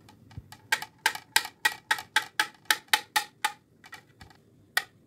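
A knife slicing a peeled banana into rounds, tapping on the cutting board about four to five times a second for around three seconds, then one more tap near the end.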